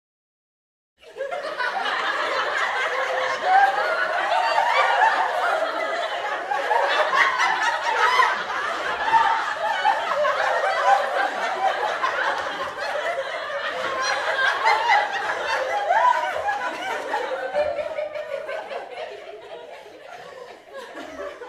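A group of people laughing, many voices overlapping, starting about a second in and dying down over the last few seconds.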